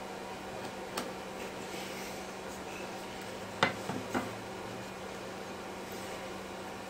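Wooden knocks as a pallet-wood rail is set down onto a tray's end uprights: one sharp knock about three and a half seconds in, then two softer ones, with a faint click a second in. A steady hum and hiss run underneath.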